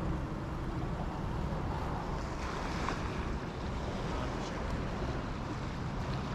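Steady wind rumble on the microphone over the rush of a strong current running through a canal.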